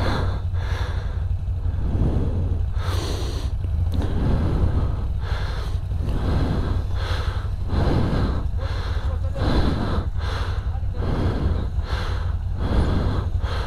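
Thousand-cc V-twin ATV engine running under load, revved in short repeated bursts about once a second, with the wheels spinning and churning in deep dry leaves as the quad struggles for grip on a steep slope.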